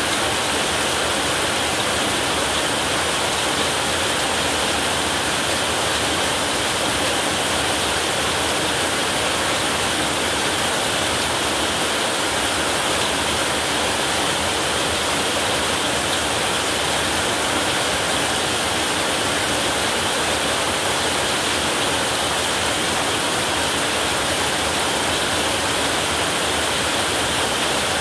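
Heavy rain falling steadily on a metal roof, an even, unbroken hiss with no thunder.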